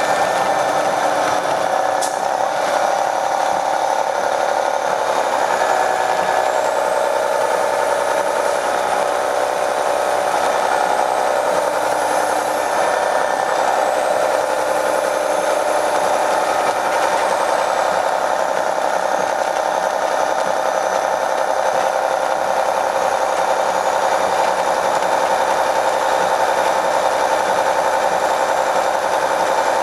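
The inline-six Detroit Diesel Series 60 engine of an MCI D4500 coach running steadily, heard from inside the bus. A high whine rises and falls over several seconds, and a single sharp click comes about two seconds in.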